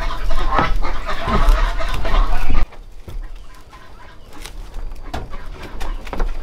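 Chickens clucking, over a low rumble that cuts off abruptly about two and a half seconds in; after that it is quieter, with a few short knocks.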